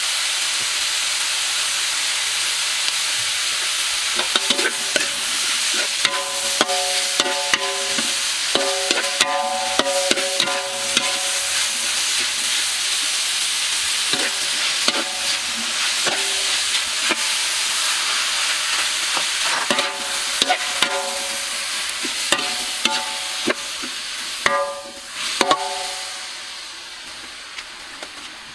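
Pork, shallots and chilies sizzling steadily in a hot wok while a metal spatula stirs, scraping and clanking against the wok again and again, each strike ringing briefly. The sizzle quiets near the end.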